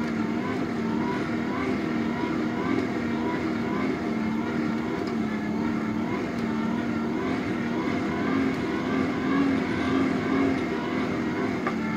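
A motor running steadily: a low, even hum that wavers slightly in pitch.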